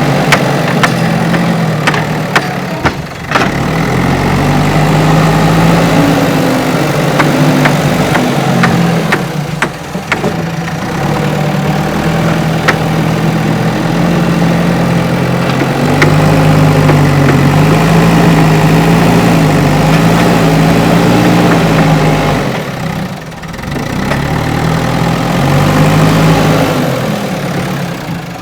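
Backhoe loader's diesel engine running and revving up and down repeatedly as it works. A few sharp clanks come in the first ten seconds, and the engine drops back briefly about four-fifths of the way through.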